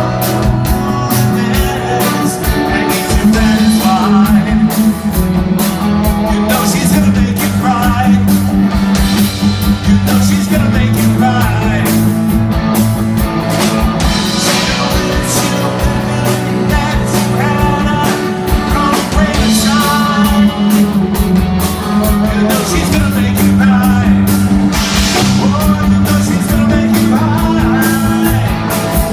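A live rock band playing at full volume during a sound check, with drum kit, bass and electric guitar.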